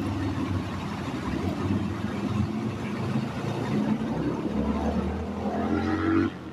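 A vehicle engine running, its pitch rising a little near the end as it speeds up, then the sound dips briefly just before the end.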